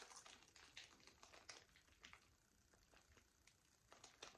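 Faint crinkling and soft clicks of a clear plastic bag of balloons being handled, scattered and thinning out after the first couple of seconds; otherwise near silence.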